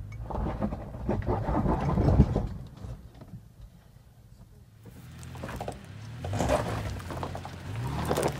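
Off-road vehicle's engine working at crawling speed on a rocky trail, heard from inside the cab. It rises in pitch twice near the end, and loud rattling and jolting comes in two stretches as the vehicle lurches over rocks.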